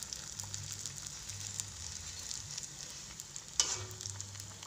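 Batter fritter deep-frying in oil in a wok, sizzling steadily while a metal spatula scrapes and knocks against the wok to turn it. There is one sharper knock about three and a half seconds in.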